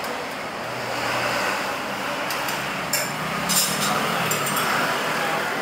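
Steady motor noise of road traffic coming in through the open shopfront, with a few light clinks of tableware between about two and four and a half seconds in.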